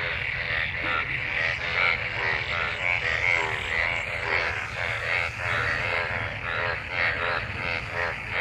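A chorus of many frogs croaking in rain-filled water, their rapidly repeated pulsed calls overlapping continuously: males calling to mate after monsoon rain. A steady low rumble runs underneath.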